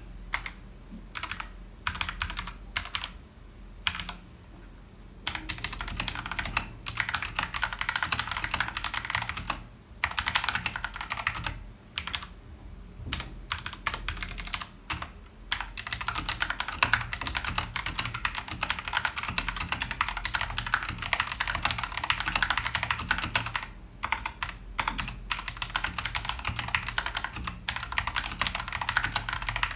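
Typing on a Royal Kludge RK100 mechanical keyboard fitted with XDA-profile PBT keycaps: a rapid clatter of keystrokes, broken by a few short pauses in the first several seconds, then nearly continuous.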